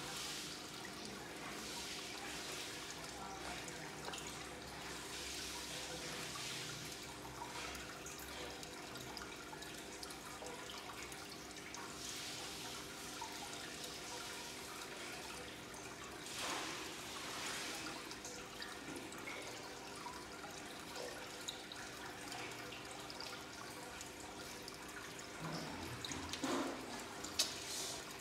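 Aquarium aeration and filter water bubbling and trickling steadily, with a faint steady hum underneath. A few louder sharp sounds come near the end.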